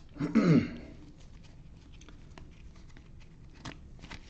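A short voice-like call sliding down in pitch, about half a second long, near the start. It is followed by faint, scattered clicks of trading cards being handled.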